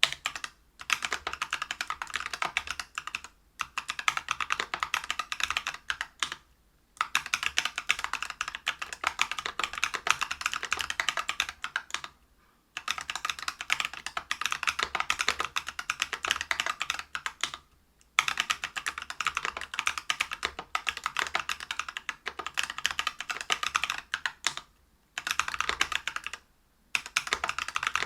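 Fast typing on a Whale 75 mechanical keyboard with lubed Neapolitan Ice Cream tactile switches (63.5 g), a brass plate and Geekark PBT keycaps. Dense runs of keystrokes are broken by short pauses every few seconds.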